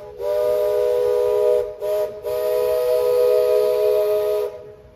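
Chime whistle of a Baldwin-built steam locomotive sounding one chord of several notes in three blasts, long, short, long, the last stopping about four and a half seconds in. With the long blast just before, this is the long-long-short-long crossing signal.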